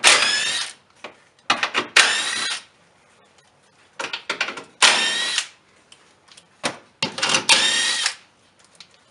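A power tool with a 10mm socket runs in four short bursts, its motor whine rising and falling each time, as it spins out the bolts holding the car's underbody splash shields. Small clicks and knocks come between the bursts.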